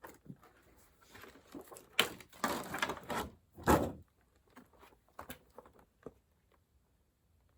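Toy packaging being handled and opened: rustling bursts about two to four seconds in, the loudest near the end of them, then a few light clicks and taps.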